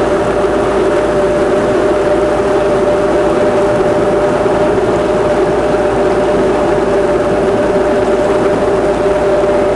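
Power boat engine running at a steady speed: a constant drone with two steady tones over a loud, even rushing noise.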